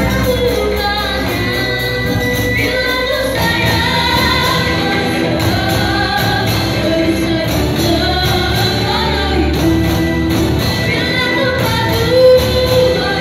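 Children singing through microphones, a girl's voice leading, over rebana frame drums beating a steady rhythm.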